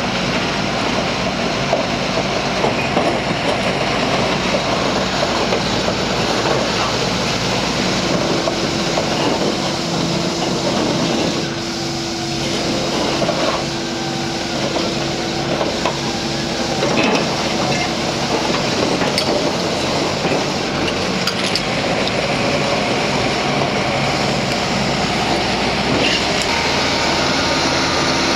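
Nippon Sharyo TL-4300H crawler earth drill on the move: its diesel engine running steadily under load with the rumble and clatter of its crawler tracks. A steady hum comes in about eight seconds in and fades out around seventeen seconds.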